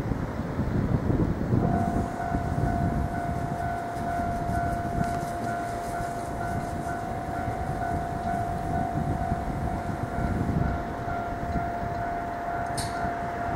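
Rail-yard sound: a low rumble, with a steady high-pitched tone that starts abruptly about two seconds in and holds without changing pitch. A short click near the end.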